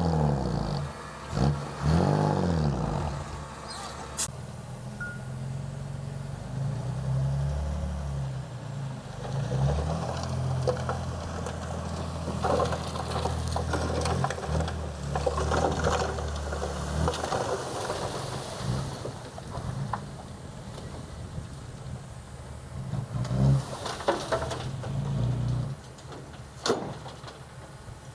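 Diesel engine of heavy earthmoving machinery: it revs up and down a few times at first, then runs steadily under load with scattered clanks, and quietens near the end.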